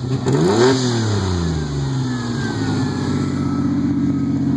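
Freshly reassembled 1988 Ford Ranger 2.9-litre V6 revved once, rising quickly about half a second in and falling back within a second or so to a steady idle. The intake is a cold air intake.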